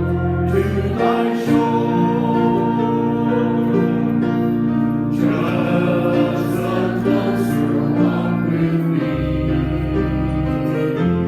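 Church choir singing a hymn with instrumental accompaniment, in long held chords over a bass that changes note about a second in and again near the end.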